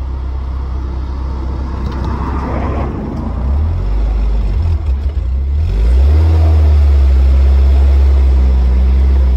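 Replica WW2 Jeep's engine running under way, its revs rising about halfway through and then held louder and steady as it is given throttle to pull away.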